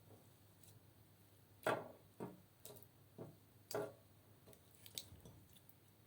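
Slime being worked by hand, giving a run of short, faint sticky squishes and pops, the loudest about a second and a half in.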